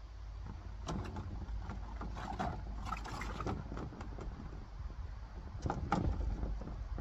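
Corrugated PVC roofing sheets being handled, their thin flexing plastic scraping and clattering against each other and the wooden frame. There is a knock about a second in, a run of rattles between two and three and a half seconds, and the loudest clatter near six seconds.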